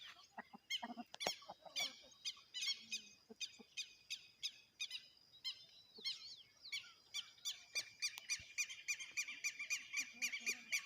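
Birds chirping and calling in a dawn chorus: many quick, high, repeated chirps from several birds, growing denser and more continuous about six seconds in.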